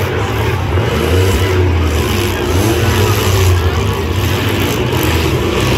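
Engines of several demolition derby minivans and small pickups running and revving, a loud low drone whose pitch rises and falls.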